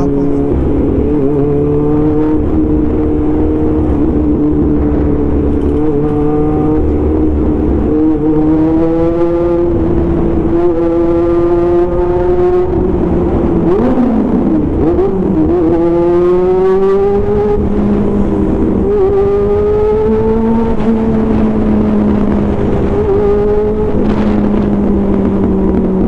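CB400 motorcycle engine and exhaust running under way, its note climbing slowly, wavering and dipping about halfway through, then climbing again.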